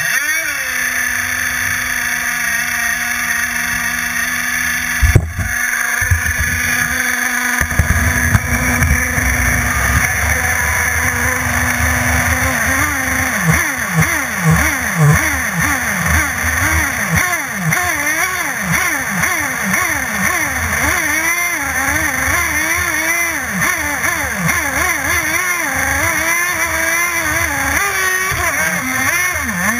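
CMB 91RS nitro-methanol engine of a radio-controlled offshore race boat catching at the start, with a short rise in pitch, then idling at a steady pitch, with one sharp click about five seconds in. About twelve seconds in, the engine note begins rising and falling over and over as the boat runs on the water.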